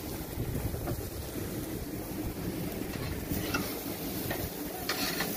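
Wind buffeting the microphone as a steady low rumble, with a few light scrapes and clicks of a metal spatula on the charcoal grill's grate about three and a half and five seconds in.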